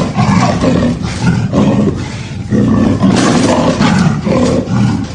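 Jaguar roaring: a run of rough, loud roars, one after another with short breaks between them.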